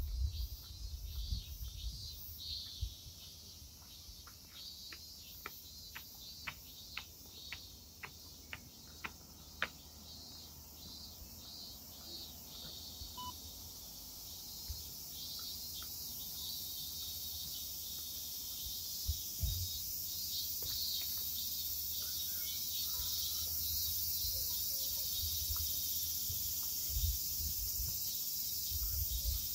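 Chorus of cicadas giving a steady high-pitched drone that grows louder through the second half. A run of short, evenly spaced clicks, about two a second, sounds for a few seconds early on.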